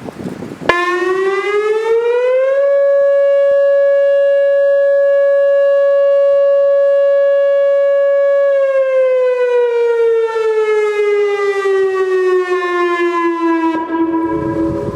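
Whelen WPS-2750 electronic outdoor warning siren sounding its alert tone. It cuts in abruptly under a second in, rises over about two seconds to a steady 560 Hz tone, holds it for about six seconds, then slowly winds down in pitch.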